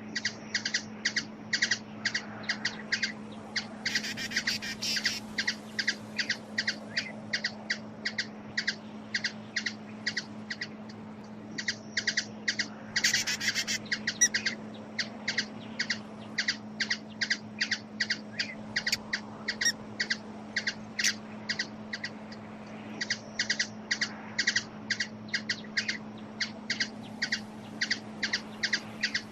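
Hummingbird giving short, evenly repeated chip calls, about three a second, broken twice by a brief burst of rapid twittering. A steady low hum runs underneath.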